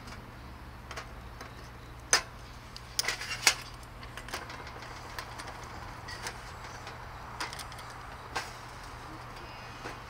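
Small metal clinks and knocks from a brass candle lantern being handled and put together on a steel camp table, with a lighter set down on it. The sharpest knocks come about two seconds in and in a quick cluster around three seconds, with lighter taps scattered after, over a steady low hum.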